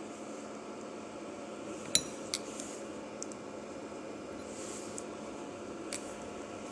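Steady running noise of a homemade induction melting furnace's cooling fan and water pump, with a few light metallic clinks, the sharpest about two seconds in and another just after.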